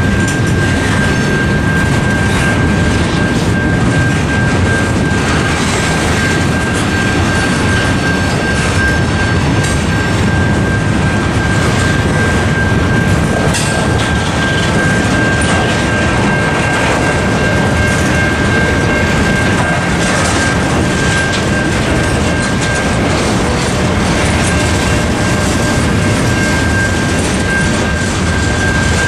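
A mixed freight train's cars rolling steadily past, wheels rumbling and clattering on the rails, with the crossing's Safetran Type 3 electronic bell giving a steady high ringing tone over the train noise.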